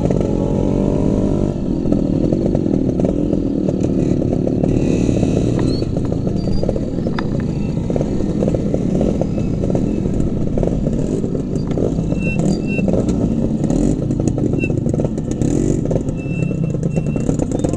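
Yamaha RX two-stroke motorcycle engine running steadily at low speed as the bike is ridden down a rough dirt trail.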